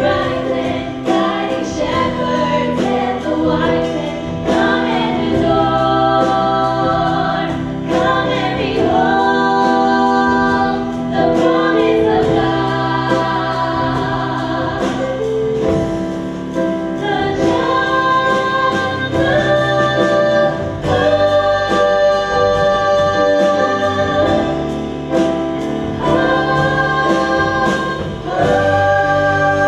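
Three women singing a slow song in close harmony, holding long notes, backed by a live band with drum kit and electric guitar.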